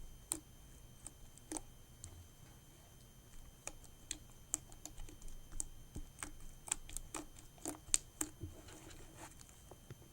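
Slime being squeezed and worked by hand, giving irregular small sharp pops and clicks as trapped air bubbles burst. The pops come thicker in the second half.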